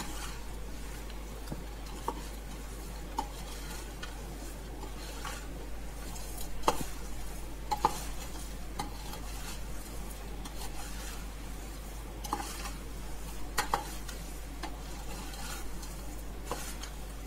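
Dry roasted flattened-rice, maize-flake and puffed-rice mixture rustling steadily as it is stirred and tossed with a steel slotted spoon in a large steel bowl. A few sharp clinks of the spoon on the bowl, the loudest near the middle.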